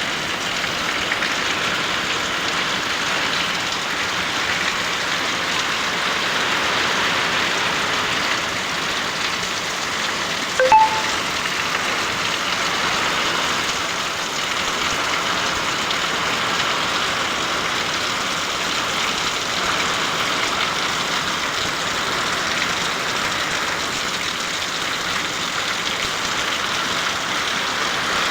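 Heavy rain falling steadily, an even hiss throughout. About ten seconds in, a brief short sound rises above it.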